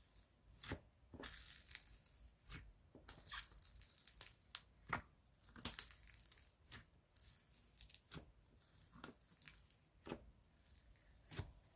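Faint, irregular crackles and rustles from hands handling an open container of DIY clay slime topped with foam beads.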